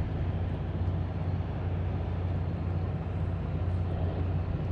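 Steady low drone of a boat engine running on the lake, with no change in pitch or level.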